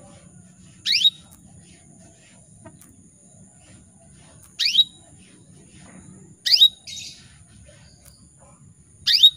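Female canary calling to a male, four sharp upward-sweeping chirps a couple of seconds apart; the call of a hen in breeding condition. A short noisy rustle follows the third chirp.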